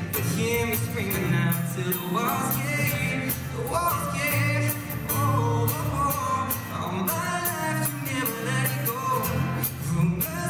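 A male voice singing a pop song live, accompanied by a strummed acoustic guitar.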